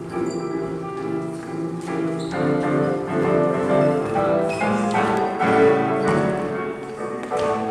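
Orchestral music with no singing, several pitched instruments holding and changing notes together, with fresh struck chords about two and four and a half seconds in.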